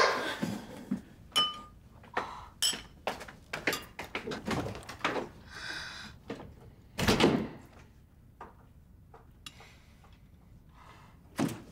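Scattered clinks and knocks of tableware during a meal: spoons and chopsticks against ceramic bowls and dishes, with one brief ringing clink early on and a louder knock about seven seconds in.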